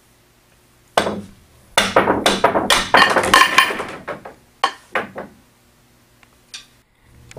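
A pool cue strikes the cue ball about a second in, then billiard balls clack rapidly against one another and the table, with a few last scattered clicks near the end.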